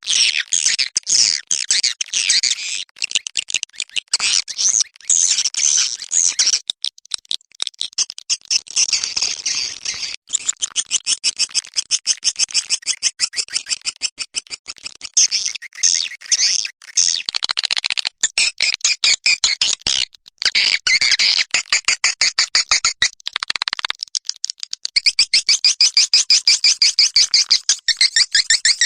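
Edible-nest swiftlet calls played as a farmers' lure sound: loud, high chirps and twitters, with long stretches of rapid, evenly spaced chittering notes several a second.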